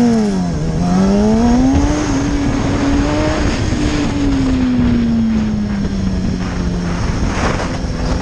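Motorcycle engine running at road speed, with wind rushing over the helmet microphone. The revs swing up and down in the first second, climb and hold for a few seconds, then slowly fall away.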